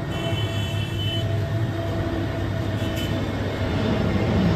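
Steady open-air background noise from a street gathering, with a low hum underneath and faint high tones about a second in. The loudness slowly builds near the end.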